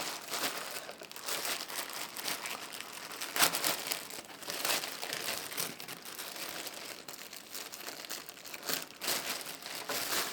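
Packaging crinkling and rustling as the box's contents are handled and pulled out, a continuous run of crackles with a sharper one about three and a half seconds in.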